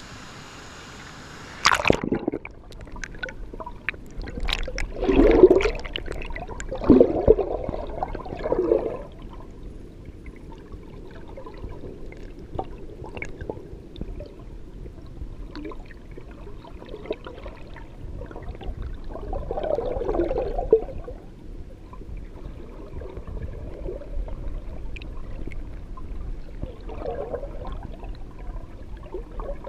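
A camera dips under the river surface with a sharp splash about two seconds in; after that, muffled underwater gurgling of the current around the camera, swelling louder several times.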